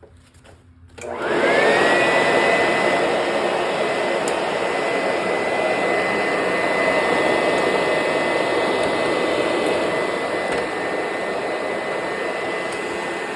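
Vintage vacuum cleaner switched on about a second in, its motor spinning up with a rising whine that settles into a steady high whine over a rushing of air. It runs steadily and, by its owner's ear, sounds pretty good.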